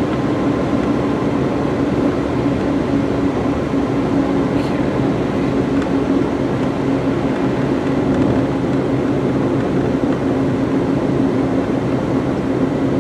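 Interior cabin sound of a 2007 Ford Focus SES four-cylinder sedan cruising at about 50 mph: a steady engine hum over tyre and road noise. The engine is running smoothly.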